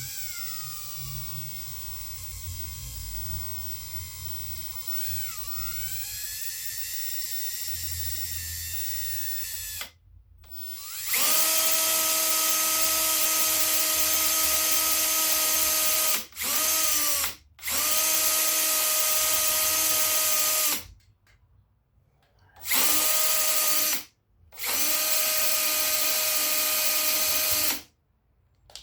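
Handheld electric drill boring a pin hole into a wooden gunstock with a small bit. First comes a quieter run of about ten seconds, with the motor bogging briefly midway as the bit bites. Then the trigger is pulled in a series of loud full-speed bursts a few seconds long, stopping and starting.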